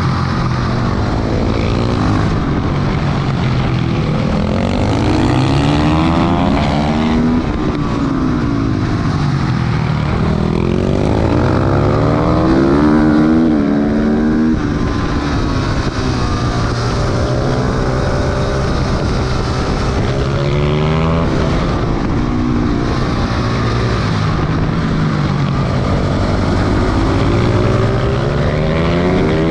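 Motorcycle engine heard from onboard while lapping a race circuit: the revs climb out of each corner, then drop sharply on braking, again and again through the run.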